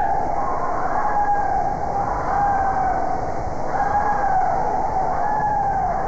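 Water rushing steadily as a rider slides along a clear-tube water slide, with a wavering whistle-like tone that rises and falls about once a second.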